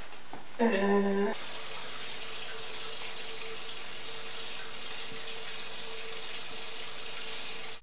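Water running steadily from a kitchen tap into a sink, with hands under the stream; it starts about a second and a half in.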